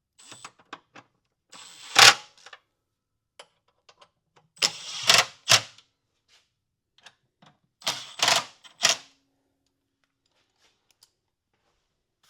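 Metal hand tools and sockets clinking and clattering in a few sharp bursts, with the loudest around two, five and eight seconds in.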